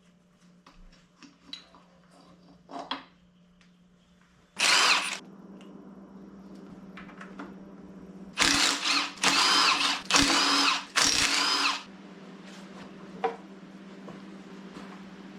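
A power tool runs in short bursts. First there are a few light clicks, then one burst about five seconds in, and four more bursts close together a few seconds later.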